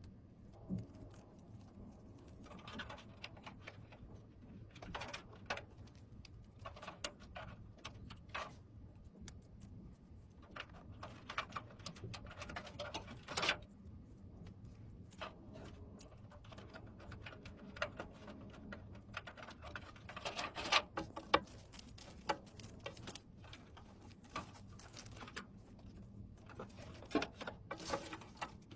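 Scattered light clicks, taps and small knocks at irregular intervals, as of computer parts and small hardware being handled and fitted, over a faint steady hum.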